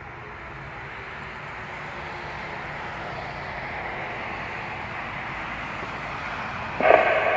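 Steady outdoor noise, slowly growing louder. About seven seconds in, the Whelen WPS-2750 siren's loudspeakers abruptly start a loud electronic alert tone made of several steady pitches, the attention tone that comes before its voice test message.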